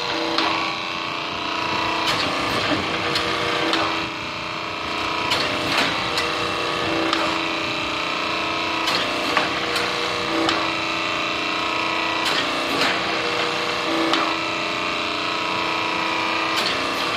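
A homemade hydraulic forging press built from a log splitter, driven by a 2 hp electric motor: the motor and pump run with a steady hum, swelling slightly every few seconds, while sharp clicks and cracks come at irregular intervals.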